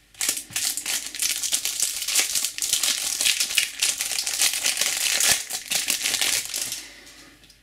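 Shiny wrapper on a stack of trading cards being torn open and crinkled by hand: a dense crackle of small crinkles that dies away near the end.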